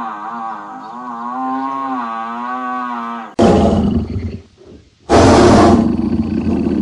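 A cow's long, wavering moo, then from about halfway in two loud, rough animal roars, the second one longer.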